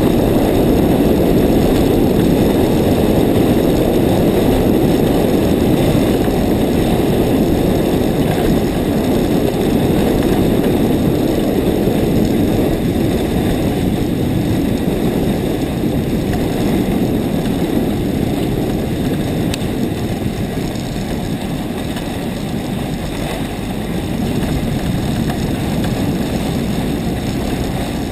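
Steady rush of wind buffeting a helmet-mounted camera's microphone, mixed with the hiss of sliding over packed snow on a downhill run. It eases a little past the middle, then picks up again.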